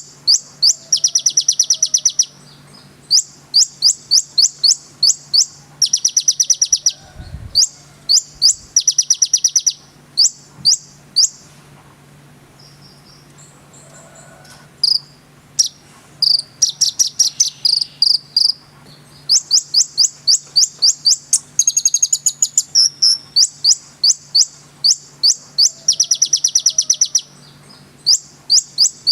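Konin singing: rapid runs of sharp, high-pitched chips and trills in bursts of a second or two, with a quieter gap about halfway through. A faint steady low hum lies underneath.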